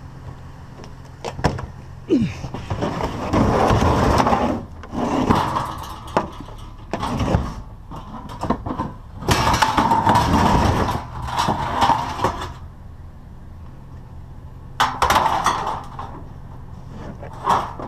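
A metal appliance and scrap metal being slid and shifted around in a pickup truck's bed: a run of scraping slides, each a second or two long, with knocks and clanks between them, over a steady low hum.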